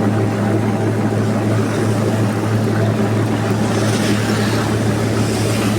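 Heavy rain falling, an even hiss, with a steady low motor-like hum underneath.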